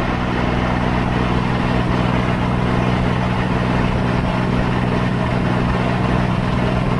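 Farm tractor engine running at a steady pace as it tows a trailer, a constant low drone with an even rush of wind and road noise over it.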